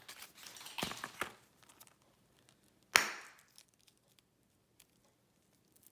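A Pop Pops Pets toy pod bursting with one sharp pop about three seconds in, after light crinkling and clicks as it is handled and squeezed.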